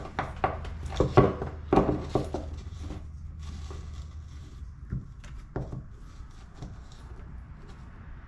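Clicks and knocks of a NOCO GCP1 AC port plug adapter being pushed into a freshly cut hole and handled to check its fit. The clicks come quickly in the first three seconds, then thin out to a few scattered taps.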